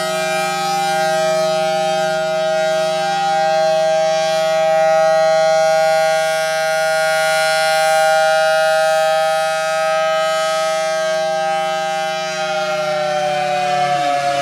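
Federal Signal Thunderbolt 1000T 4/5-port tornado siren sounding its steady full-alert tone, a loud sustained chord that swells and eases gently. Its blower runs backwards, sucking air, which keeps it from being as loud as it could be. Near the end the pitch starts to drop as it begins to wind down.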